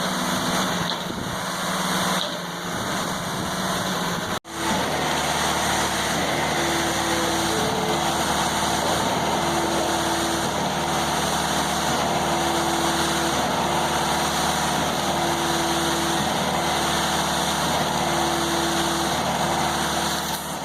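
Engine running steadily, with an abrupt break about four and a half seconds in, where the sound cuts and resumes. Afterwards a low tone comes and goes at a regular pace, roughly once a second, over the steady engine noise.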